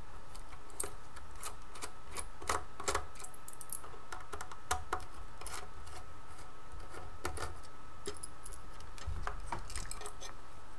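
Irregular small clicks and taps of the Extech EX430 multimeter's plastic case as its two battery-compartment screws are undone and the meter is handled to take off the compartment cover. A faint steady high tone sits underneath.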